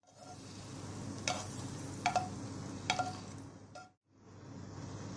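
Metal kitchen tongs clinking against the rim of a frying pan four times as cooked beef slices are lifted onto a plate, each click short and ringing, over a steady background hum. The sound cuts out briefly near the end.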